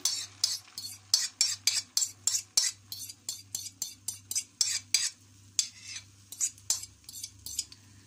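A metal spoon scraping and tapping against the rim and inside of a bowl in quick repeated strokes, about three a second, as the last of the beaten egg is scraped out into the frying pan.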